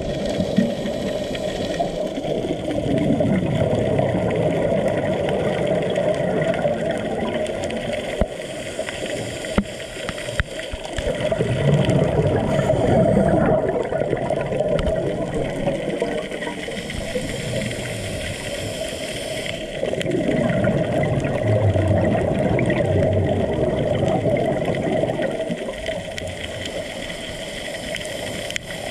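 Scuba diver's regulator breathing underwater: a hiss on each inhale, then a rumble of exhaust bubbles on each exhale, a breath every several seconds.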